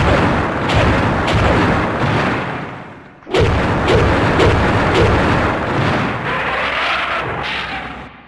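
Roar of the kaiju Gudon, a sound effect: two long, noisy, rumbling cries. The second starts abruptly about three seconds in, after the first fades out.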